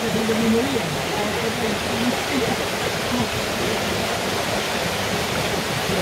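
Steady rush of a clear mountain stream tumbling over boulders below a small waterfall.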